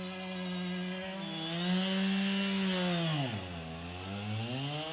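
Chainsaw running at high revs while slabbing a London plane log. Its pitch drops sharply about three seconds in and climbs back up about a second later.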